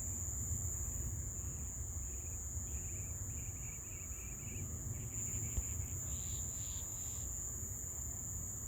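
Evening chorus of insects: a steady, high, shrill drone, with a run of rapid chirps starting about two seconds in and a higher chirping after about five seconds. A low rumble runs underneath.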